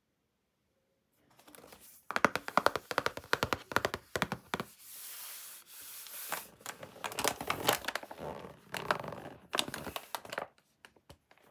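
Advent calendar packaging being torn open and crinkled. Dense crackling comes first, then a steady rasp of tearing, then more crackling that thins out to a few scattered clicks near the end.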